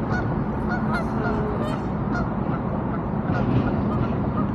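Short repeated bird calls, honking in character, over a steady rushing background noise.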